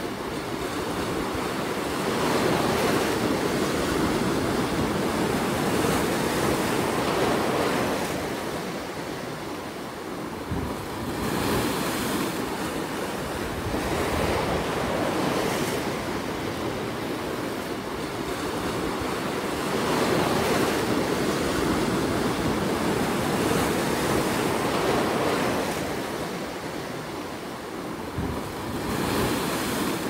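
Ocean surf breaking and washing over rocks and a rock shelf, a continuous rushing wash that swells and eases with the waves, dipping briefly about ten seconds in and again near the end.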